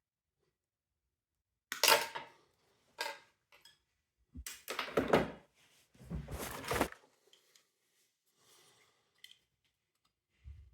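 Parts of a window vacuum cleaner being handled during disassembly: a few clacks and knocks with scraping, in four or five short bursts.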